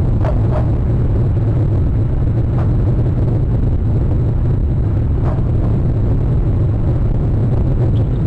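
Steady low rumble of wind on an outdoor webcam microphone, with a few faint, brief higher sounds at the start and again about two and a half and five seconds in.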